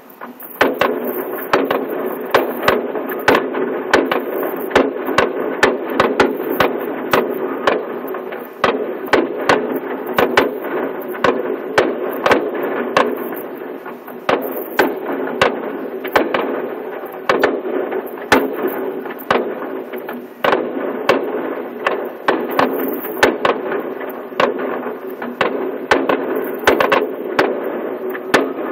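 Distant aerial fireworks shells bursting in a fast, irregular run of bangs, several a second, over a continuous rumble, starting about half a second in and thinning out near the end.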